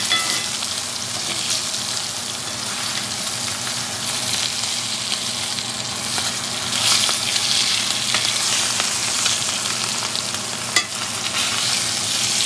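Ribeye steak sizzling in hot butter in a cast-iron skillet while a spoon bastes it, the frying hiss steady and a little louder about seven seconds in. The spoon clicks sharply against the pan at the start and again near the end.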